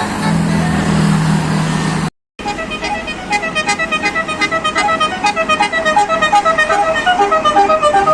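A bus's Basuri telolet multi-tone air horn playing a fast melody of short honking notes, four or five a second, after a brief cut; before the cut, a low steady horn or engine drone.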